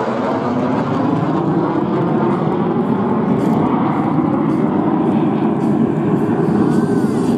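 Jet engine noise from a pair of Mirage 2000 fighter jets flying past and moving away, a steady, loud rumbling rush that holds without a break.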